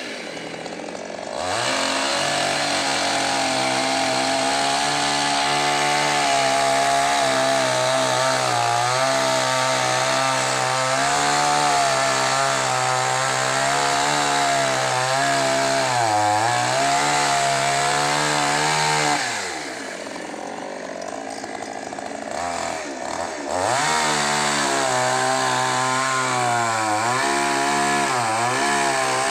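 Ogawa two-stroke petrol chainsaw revved to full throttle and cutting through a fallen tree trunk, its pitch wavering and dipping as the chain loads up in the wood. About two-thirds of the way through it drops back to idle for a few seconds, then revs up and cuts again.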